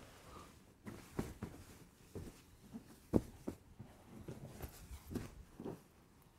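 Pillows and cushions being picked up and set down on a bed: irregular soft thumps and fabric rustling, with the firmest thump about three seconds in.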